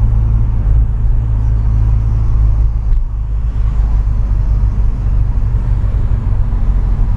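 Renault Mégane 225's turbocharged four-cylinder engine running under load through a Ktec aftermarket exhaust, heard from inside the cabin. About three seconds in the steady note breaks up and drops a little.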